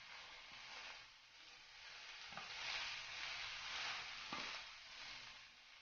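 Moringa leaves frying with onions and moong dal in a pan over a low flame: a faint, steady sizzle as they are stirred, with a couple of brief ticks of the spoon against the pan.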